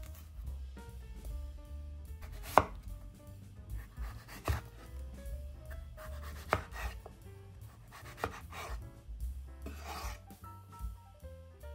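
Chef's knife cutting cucumber on a bamboo cutting board, the blade knocking sharply on the board about every two seconds, loudest about two and a half seconds in.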